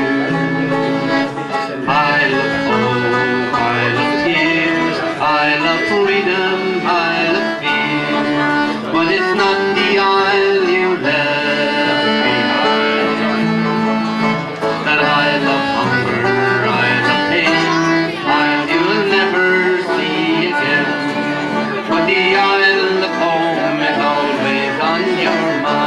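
Instrumental folk tune from a small live band, with accordion playing the melody over strummed acoustic guitar and banjo.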